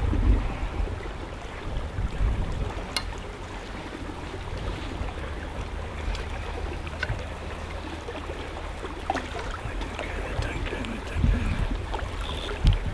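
Wind rumbling on the microphone by open water, swelling at the start, about two seconds in and again near the end, with a few faint scattered clicks.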